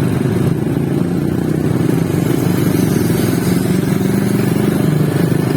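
Motorcycle engines running in a continuous, steady drone.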